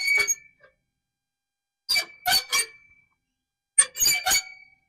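Greenworks push reel mower's blades squeaking as the reel is turned by hand against the freshly tightened bed knife, metal rubbing on metal: a short squeak at the start, then two quick runs of about three squeaks at about two and four seconds in. It is the dry squeak of tight reel-to-bed-knife contact, which goes away once mowing wets the blades or with a spray of WD-40.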